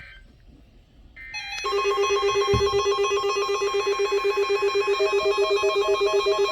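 Electronic telephone ringing with a fast warbling trill that starts about a second and a half in and keeps going, picked up over the live broadcast audio. A dull low thump comes about two and a half seconds in.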